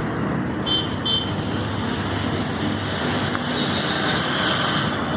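Steady road traffic noise, with two short high beeps about a second in.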